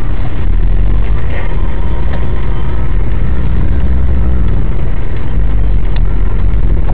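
Loud, steady low rumble heard from inside a car's cabin, the car's own running and a freight train rolling past over the level crossing just ahead blending together, with a few faint clicks now and then.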